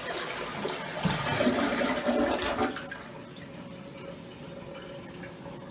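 TOTO toilet flushing, a rush of water that ends about three seconds in. The tank then refills, water running quietly and steadily from the spout of the hand-wash basin on top of the tank.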